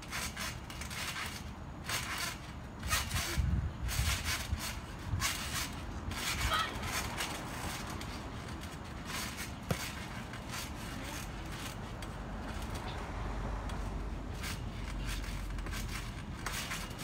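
Thumps and scrapes on a trampoline mat as players jump, land and slide across it, irregular during the first several seconds and then giving way to a steadier hiss.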